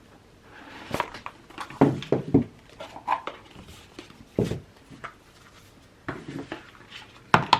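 Oracle card deck and its cardboard box being handled: irregular clicks, taps and short paper rustles as the box is opened and its contents taken out.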